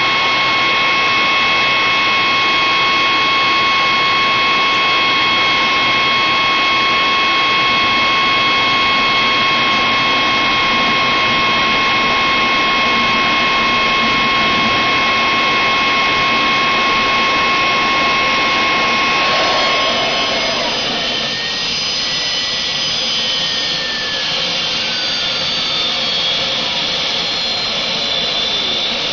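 Home-built turbocharger jet engine being started, with an electric blower forcing air into its compressor intake: a loud steady rush with several high whines. About two-thirds through, the steady whines stop, one whistle falls slowly in pitch and higher ones climb.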